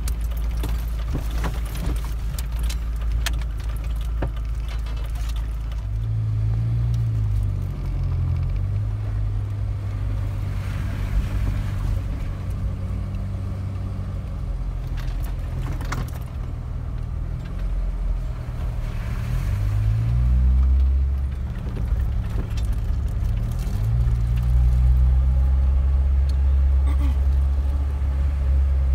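Jeep engine heard from inside the cab while crawling along a bumpy dirt and sand trail, its note rising and falling several times with the throttle. Scattered knocks and rattles from the body and loose items as the Jeep goes over bumps.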